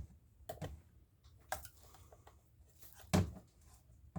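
A few light clicks and knocks of parts being handled at a workbench, the loudest just over three seconds in.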